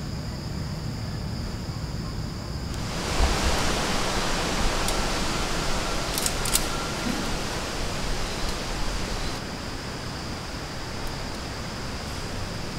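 Forest ambience: an even rushing of wind through the trees, swelling about three seconds in and easing back near nine seconds, over a constant high insect drone. A couple of light clicks come around the middle.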